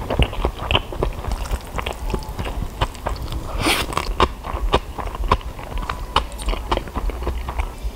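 Close-miked eating sounds: mouthfuls of spicy cold naengmyeon noodles being chewed, a dense run of irregular sharp wet clicks, with one brief louder noisy sound about halfway through.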